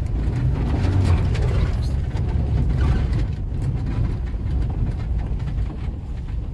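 SUV driving over a rough dirt track, heard from inside the cabin: a steady low rumble of engine and tyres, with light rattles from the bumpy ground.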